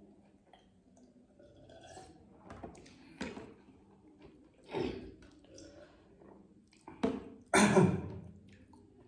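Close-up drinking and eating sounds: sips and swallows of cola from glasses, breathy exhales, and short knocks of a glass and spoons on the table and steel plates. The loudest is a sharp knock about seven seconds in, followed at once by a longer breathy sound.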